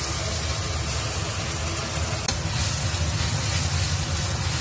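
Chopped scallions and soybean paste sizzling in hot oil in a wok while being stirred with a metal ladle, over a steady low rumble. There is a light click about halfway through.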